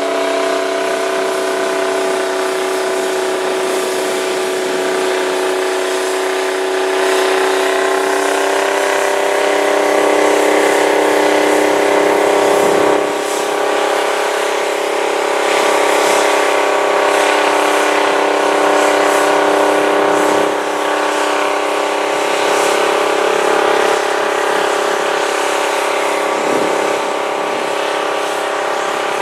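The Rite 750 Earthquake tractor's Detroit Diesel 12V92 two-stroke V12 diesel running under load as it pulls a 20-bottom moldboard plow through the soil. It makes a loud, steady engine note with a strong pitch.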